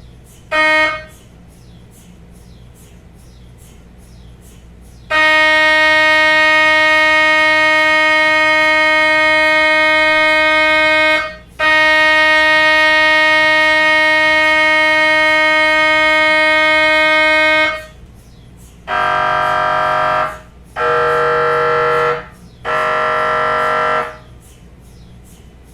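MRI scanner gradient coils buzzing through a scan sequence. A short beep comes first, then two long, steady, loud buzzes of about six seconds each with a brief break between them, then three shorter buzzes in quick succession. A steady low hum runs underneath.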